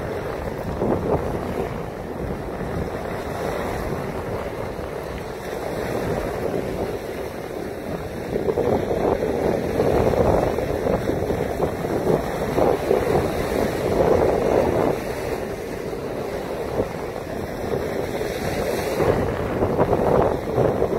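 Wind buffeting the microphone over the wash of waves on a sand-and-pebble lakeshore. The gusts grow louder about eight seconds in and again near the end.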